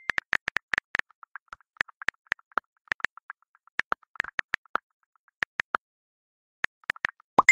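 Smartphone keyboard clicks: quick, irregular taps of someone typing on a phone, pausing briefly before a last flurry. A bright chime rings out right at the end.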